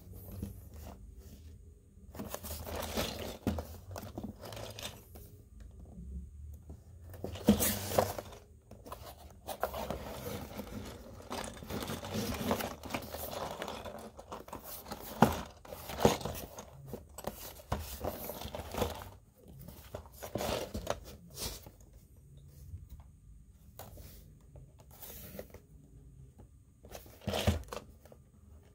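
A Lego set's packaging being opened by hand: irregular tearing, crinkling and scraping of cardboard and plastic bags, with a few sharp clicks.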